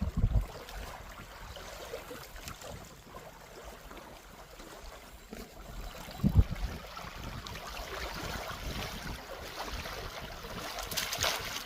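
Lakeside outdoor noise: a steady rushing like water lapping, with a low thump about six seconds in and a brief louder hiss near the end.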